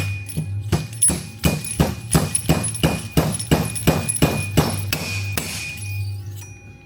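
Rhythmic metal knocking, about three strikes a second, stopping near the end: a fork seal driver tapping a seal down into a motorcycle fork tube until the clip groove shows.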